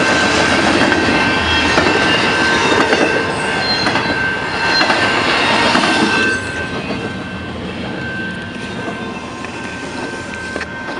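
CN intermodal freight train rolling through a level crossing: a dense, steady rumble of cars and wheels with light clicks and a thin, steady high squeal. About six seconds in it turns quieter and duller.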